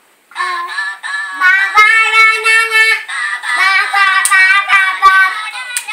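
A recorded song with a woman singing, starting about a third of a second in and played loudly from a mobile phone's speaker.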